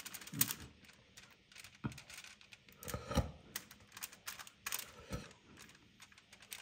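Faint, irregular clicks and scrapes of a metal spoon spreading masala paste over a whole sea bream lying on aluminium foil, with a few soft knocks and light rustles of the foil.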